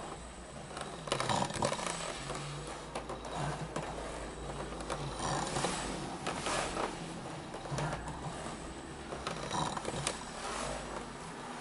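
Ninebot One S2 electric unicycle rocking back and forth in short forward-and-backward moves. Its hub motor whirs in uneven surges, with scattered clicks as it changes direction.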